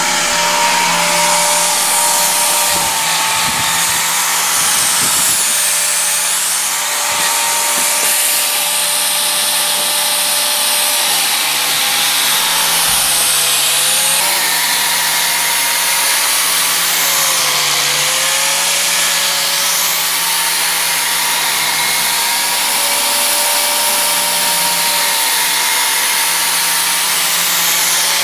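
Corded RIDGID electric router running steadily as its bit cuts into a block of ice, carving it into a lens shape. Its pitch sags briefly a few times.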